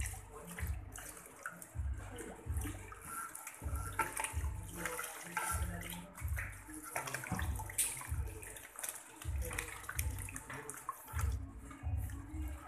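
Running water from a salon basin's spray hose splashing into the sink as long hair is rinsed and worked by hand. Underneath is a low thudding pulse that comes about once a second.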